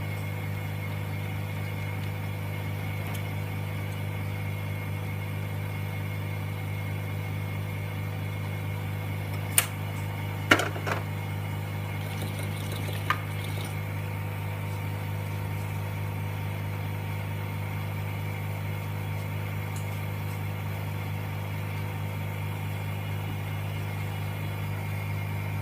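Steady low electric hum of a vacuum pump motor running for the LCD refurbishing machine. A few sharp clicks come about ten and thirteen seconds in.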